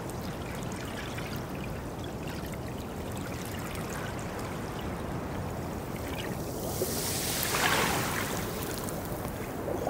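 Steady watery rushing and trickling ambience, swelling into a brighter hiss about seven to eight seconds in.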